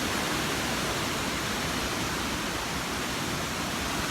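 Steady rush of hurricane wind, with gusts buffeting the microphone.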